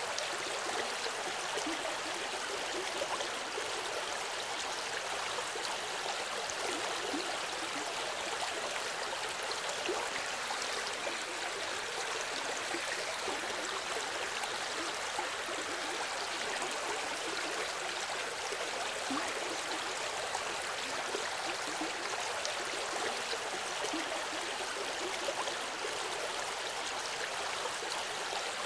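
A small river flowing: a steady, even rush of water.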